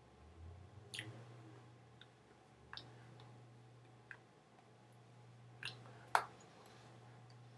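Scattered soft clicks and taps, about seven over several seconds, the loudest near the end, from hands striking and brushing against each other while signing in ASL. A steady low hum runs underneath.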